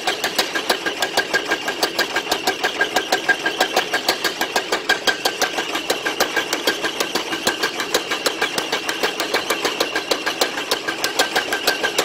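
Mechanical power hammer pounding a red-hot steel nadea blade held in tongs, a fast, steady run of blows at roughly five a second.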